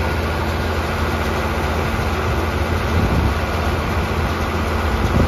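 Ford TW-20 tractor's six-cylinder diesel engine running steadily while pulling a New Holland 644 round baler as it picks up hay. The sound swells briefly about three seconds in and again near the end.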